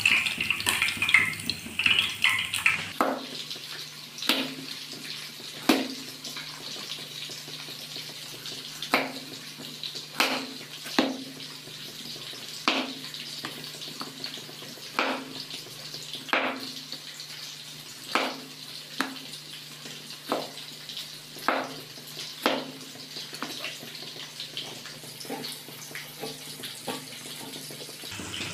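Fish frying in oil, a sizzle for the first few seconds. Then a knife chopping tomatoes on a plastic cutting board: about twenty sharp knocks, irregular, roughly one a second, over a low steady hum.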